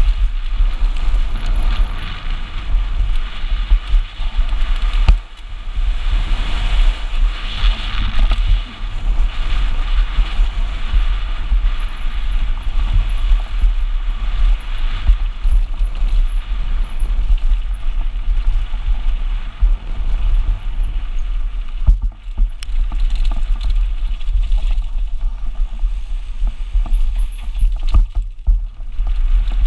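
Wind buffeting an action camera's microphone as a downhill mountain bike runs fast down a dirt trail. Tyres roll over dirt and stones, and the chain and frame rattle irregularly over bumps.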